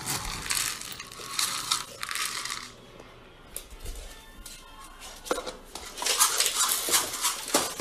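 Dry pet food rattling and scraping as a plastic scoop digs into a canister of kibble and tips it into a small bowl, with clicks of the scoop against the container.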